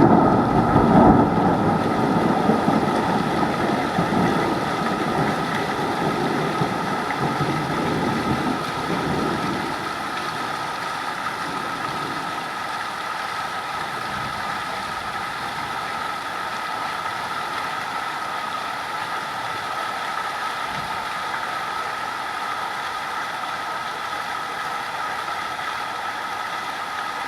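Steady heavy rain with a low rumble of thunder that fades away over the first several seconds.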